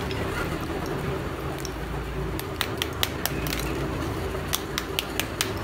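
Roasted multani mitti (fuller's earth) clay slabs clicking and cracking as they are handled and worked with a hammer to split off layers. From about halfway there are a dozen or more short, sharp, irregular clicks.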